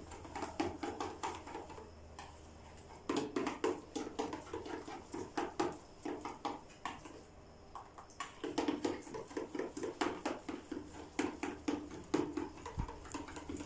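A wooden stick stirring custard mixed with strawberry jelly in a stainless steel bowl: quick, rhythmic scraping and tapping against the bowl, in three spells broken by short pauses about two and seven seconds in.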